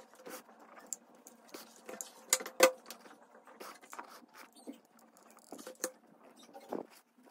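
Hands handling jute twine against a burlap-covered box: irregular scratchy rustling with small clicks, the sharpest click about two and a half seconds in.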